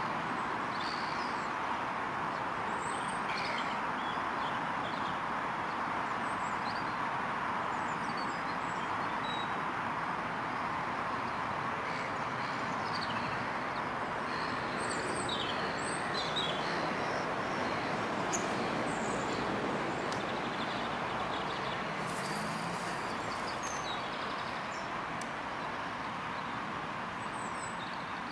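Small birds chirping now and then over a steady background hiss.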